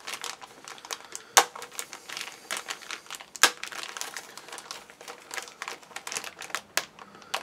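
Plastic sprue bag of a model kit crinkling and rustling as it is opened and handled, with two sharp clicks about a second and a half and three and a half seconds in.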